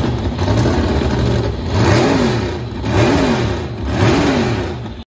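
Big-block Chevy V8 race boat engine, a 468 cubic inch with a single carburettor, running and revved three times, each blip rising and falling in pitch, before the sound cuts off suddenly at the end.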